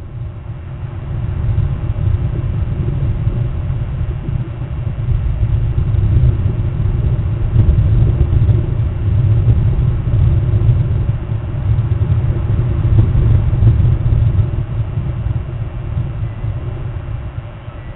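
Strong wind buffeting the nest camera's microphone: a loud low rumble that swells and eases with the gusts, fading near the end.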